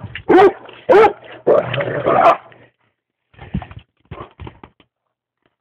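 Dog barking in play: two sharp barks in the first second, a longer run of barking, then softer, shorter sounds that stop about five seconds in.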